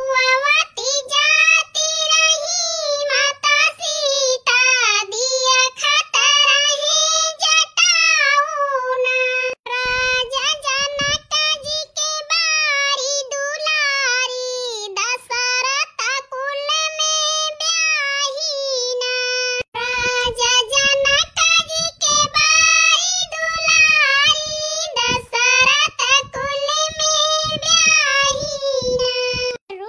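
A high-pitched voice singing a song with a wandering melody. Low drum-like beats join briefly about ten seconds in and again from about twenty seconds on.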